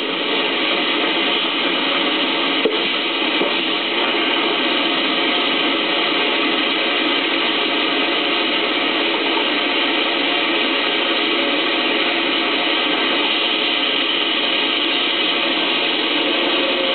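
Steady motor and machinery noise of a 1975 Welty Way duct coil line running, thin and hissy as if played back through a screen's speaker, with a single click about two and a half seconds in.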